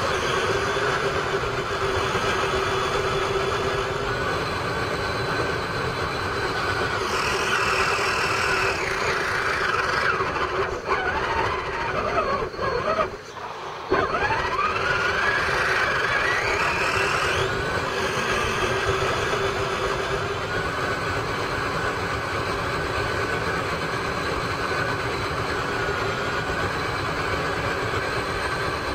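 Onboard sound of a radio-controlled truck's electric motor and gears whining steadily as it drives over rough ground. Around the middle the whine rises and falls in pitch with the throttle, and it drops out briefly.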